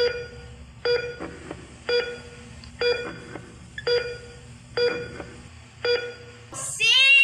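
A short electronic beep repeats evenly about once a second, seven times in all, each with a sharp click at its start. A child's voice rises in pitch near the end.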